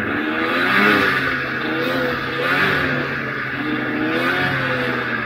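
Old Ski-Doo Formula Z snowmobile's two-stroke engine running under way, its revs rising and falling again and again as the throttle works, over a steady rushing noise.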